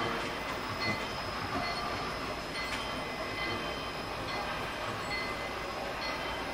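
On3 narrow-gauge model train running on the layout, a steady, even mechanical noise with faint high tones and no distinct strokes.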